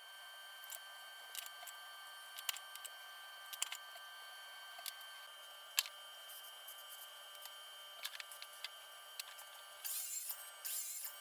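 Light scattered clicks and knocks of lumber being handled and slid into place on a miter saw table, over a faint steady hum. Near the end there are two short, louder bursts of hissing noise.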